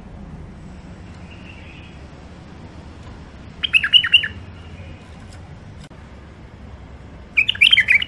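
White-eared bulbul singing two short phrases of quick rising and falling notes, one about halfway through and one near the end.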